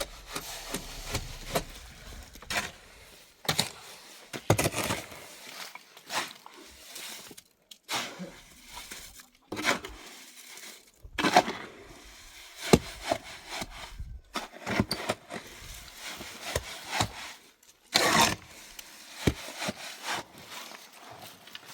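Irregular knocks, cracks and scrapes of hands-on work with wood, coming in uneven clusters, with the loudest crack about 18 seconds in.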